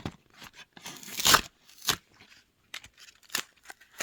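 A Hot Wheels toy car's blister pack being torn open by hand: irregular bursts of tearing and crinkling of card and plastic, the loudest a little over a second in.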